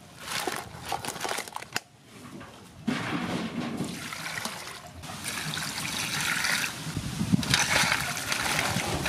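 Water poured over crabs in a metal basin, splashing and trickling steadily from about three seconds in and getting louder from about five seconds, after a few light knocks at the start.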